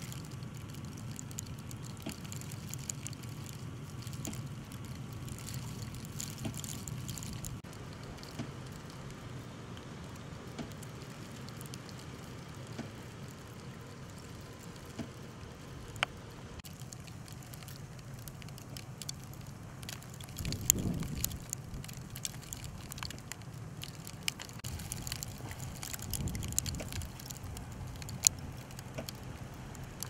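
Snowstorm wind: a steady low rumble with scattered light ticks, swelling louder twice past the middle.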